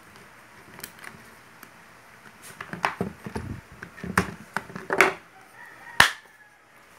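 Plastic housing of an electric drill being handled and fitted back together: a run of knocks and clatters, ending in a sharp click about six seconds in.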